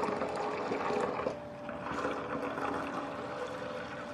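Hot water being poured off a pot of boiled potatoes into another container: a steady trickling, splashing pour that swells and eases. A faint steady hum sits under it.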